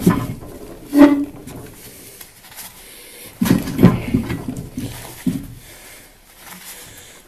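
Rust-seized pivot joint of a large blacksmith's tin shear creaking and groaning in several short strokes as the handles are worked open and closed, metal grinding on rusted metal: the joint is stiff with rust.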